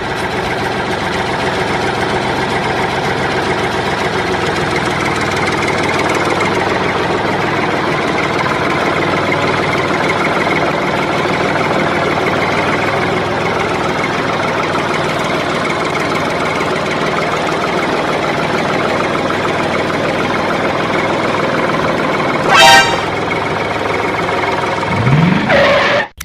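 Small tractor engine running steadily, with a short horn honk about three-quarters of the way through.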